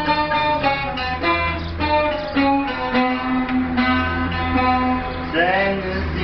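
Bağlama (saz), a long-necked Turkish lute, plucked in a quick melodic run. A man's singing voice comes in about five seconds in.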